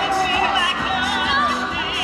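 Recorded pop music with singing, played loud over a sound system for an airband dance routine.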